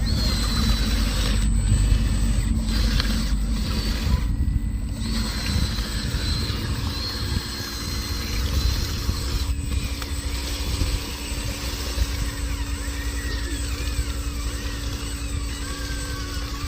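Small electric motors and gearboxes of RC construction vehicles whining as they drive, with thin high whines that come and go over a constant low rumble.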